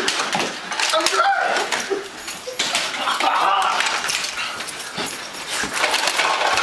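Clatter of a Nerf dart battle: rapid clicks and knocks of foam-dart blasters firing and darts striking, mixed with brief yelps and shouts.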